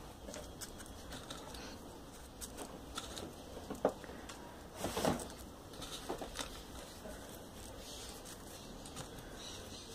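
Folded paper units of a 3D origami figure rustling and clicking as they are pushed into place one by one, in irregular soft taps, with a louder paper rustle about five seconds in.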